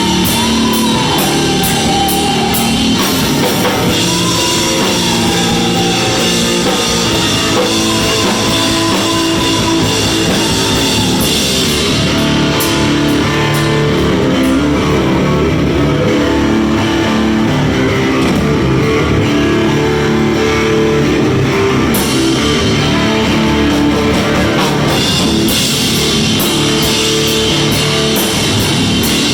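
Rock band playing live: guitars, bass and drum kit at full volume. A guitar line bends up and down in pitch over the first few seconds. Cymbals ride hard at the start, drop back in the middle, and come in hard again near the end.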